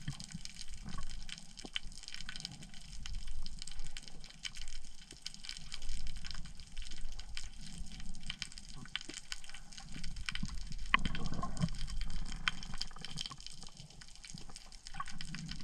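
Underwater sound picked up by a diving camera: a swelling wash of moving water with a low rumble and many scattered sharp clicks, a louder cluster of them about two-thirds of the way through.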